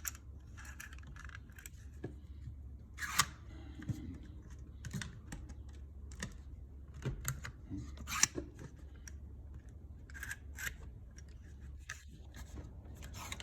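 Scattered clicks and rattles of a Klein Tools cable stapler being handled and loaded with staple cartridges, with sharper snaps about three and eight seconds in.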